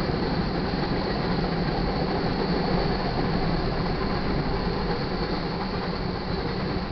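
Freight train cars, tank cars and boxcars, rolling past a grade crossing: a steady rumble of wheels on the rails.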